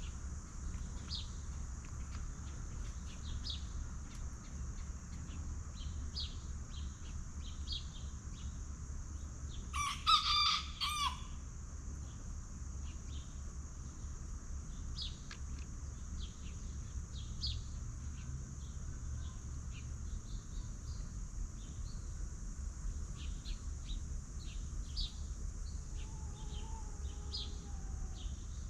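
A rooster crows once, loud and brief, about ten seconds in, over short high bird chirps scattered throughout and a steady high-pitched hiss.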